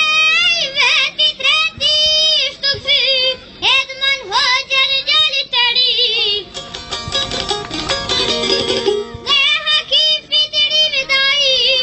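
A boy singing a slow melody with long, wavering held notes over instrumental accompaniment; in the middle the voice drops out for a short instrumental passage, and the singing comes back in near the end.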